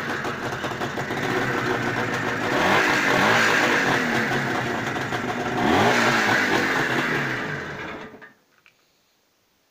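IZh Jupiter two-stroke twin-cylinder motorcycle engine firing up at once on a cold start and running, revved up twice, about three and six seconds in. The engine sound stops about eight seconds in.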